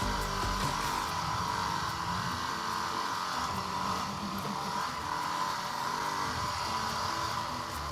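Yamaha WR250R's single-cylinder four-stroke engine running steadily at low revs in first gear as the motorcycle crawls down a steep hill.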